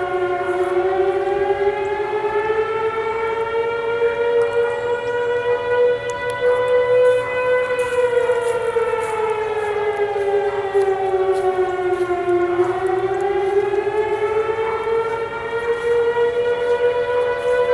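Outdoor warning sirens sounding from across town during a weekly test. One siren's pitch rises slowly, falls back about twelve seconds in, and climbs again, over a second siren's steadier tone.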